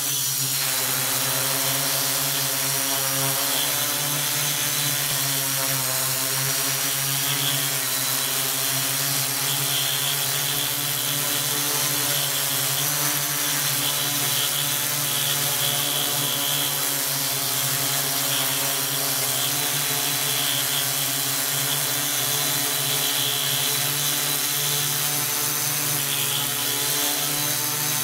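Multirotor drone's electric motors and propellers running with a steady hum, heard up close from the camera carried beneath it.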